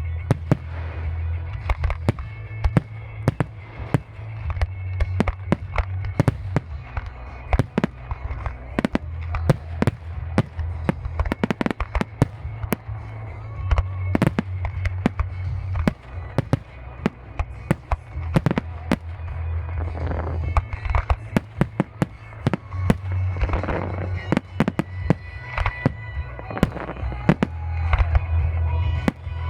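Fireworks display: a dense barrage of sharp bangs from bursting shells, often several a second, over music with a heavy bass.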